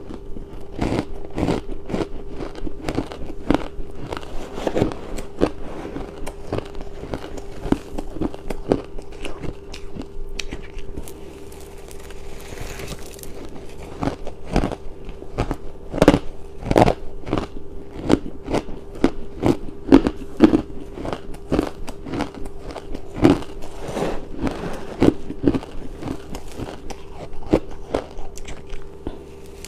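Person biting and chewing crunchy pink ice close to the microphone: a steady run of sharp, brittle crunches, one or two a second.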